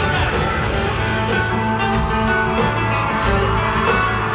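Live band music in an arena: an acoustic guitar strummed over a steady drum beat.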